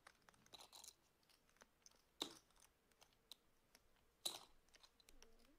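Poker chips clicking faintly as a player handles his stack, with two sharper clacks about two seconds and four seconds in.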